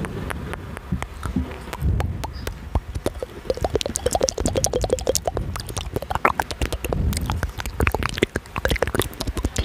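Close-miked ASMR mouth sounds: a rapid run of wet clicks and smacks from the tongue and lips. They grow denser from about a third of the way in, with short popping notes among them.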